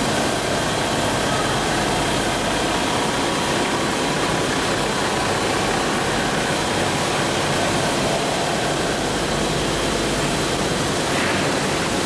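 Steady machinery noise of a coil car mat production line running: an even rush of sound with a faint constant hum, no distinct knocks or events.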